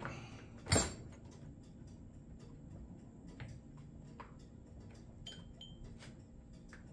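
Small clicks and clinks of hand tools and metal parts being fitted on a chainsaw under reassembly, with one loud, sharp clink about a second in.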